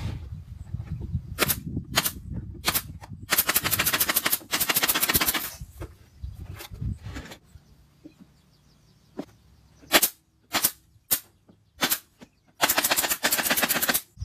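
Pneumatic brad nailer firing nails into wooden enclosure panels: sharp single shots, plus two quick strings of rapid-fire shots each lasting about two seconds.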